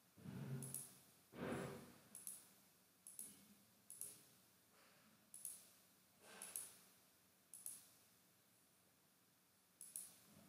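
Faint computer mouse clicks, about one a second at uneven spacing, as points are placed one by one in plotting software. Near the start there are two longer, soft noises.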